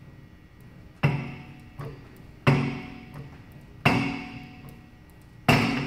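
Weight-stack plates of a seated leg exercise machine clanking down four times, about one and a half seconds apart. Each clank rings briefly.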